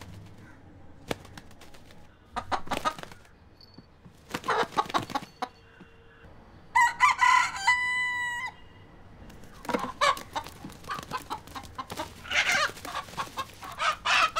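Pet broiler rooster crowing once, a long call about seven seconds in, with short bursts of clucking before and after it.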